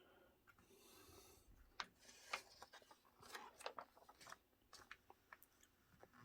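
Faint rustling and crinkling of paper as an instruction booklet is handled and its pages turned, with scattered light clicks, loudest a couple of seconds in.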